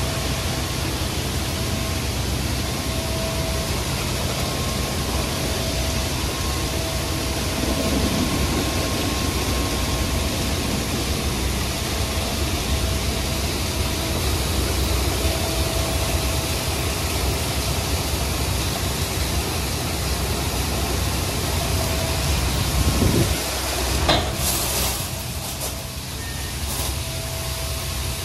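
nu-star Soft Touch Plus hydraulic-drive friction rollover car wash running over a car: a steady hiss of water spray with the whir of spinning cloth wrap brushes. A sharp knock comes about 24 seconds in, after which the wash noise eases a little.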